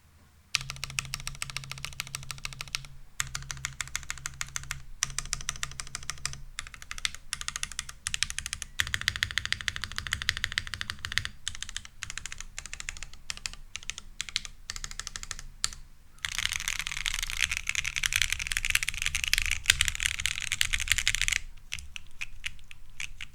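Typing on a Neo 80 mechanical keyboard with factory-lubed Gateron Snow Rabbit switches on a full POM plate, sandwich-mounted with o-rings and no foam, fitted with PBT keycaps. Keystrokes come in short runs separated by brief pauses, then about two-thirds of the way through turn into fast, dense key-mashing for about five seconds before thinning to scattered keystrokes.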